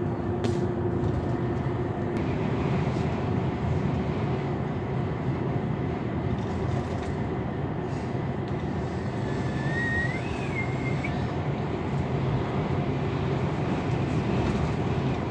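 Steady engine and tyre noise heard from inside a vehicle cruising along a highway. About ten seconds in there is a brief high tone that rises and falls.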